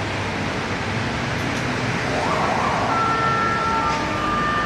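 Emergency vehicle siren over street noise: a short rising-and-falling sweep about halfway in, then held high tones near the end.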